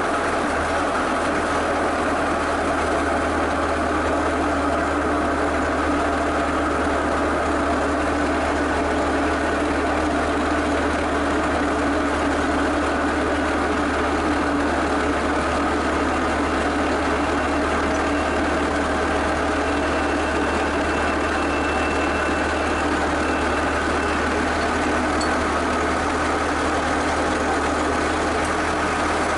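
Skid steer's engine running steadily at a constant speed.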